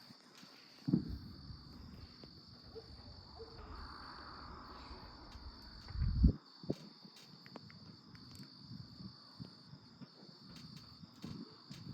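Night insects keeping up a steady, high, unbroken chorus. Two low thumps stand out, one about a second in and a louder one about six seconds in.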